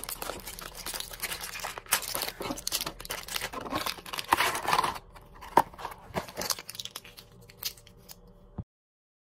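Crinkly foil pouch from a box of tablets being torn open and crumpled in the hands, a dense crackling for about five seconds. Sparser rustles and clicks follow as the packaging is handled, and the sound cuts off suddenly near the end.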